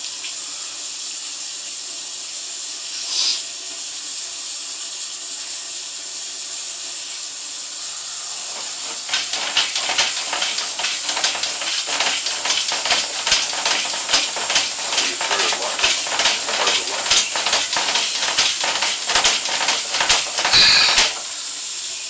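Sewer inspection camera rig being fed along a 4-inch cast iron drain: a steady hiss, then from about nine seconds in a fast, irregular clicking and rattling as the push cable moves, with a louder scraping burst near the end.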